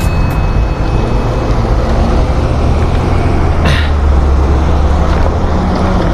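Wind noise on the microphone of a camera on a moving bicycle, a heavy steady low rumble, with cars passing on the road alongside; one goes by about three and a half seconds in, its pitch falling as it passes.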